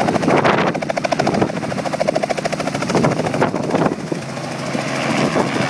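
Small two-bladed helicopter lifting off and climbing away: fast, even rotor chop over engine noise, with a few gusty rushes of air, easing off a little about four seconds in.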